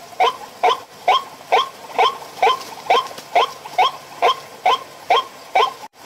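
White-breasted waterhen calling: a loud croaking note repeated evenly about twice a second.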